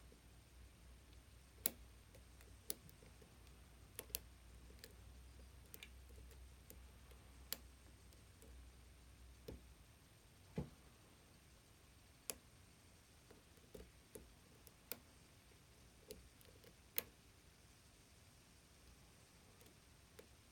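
Sparse, irregular clicks from an Assa 600 oval lock cylinder being picked: the pick and pins (gin-bottle spool pins) clicking inside the plug under tension from two wrenches. A lot of clicking, each click faint and sharp, about a dozen spread through.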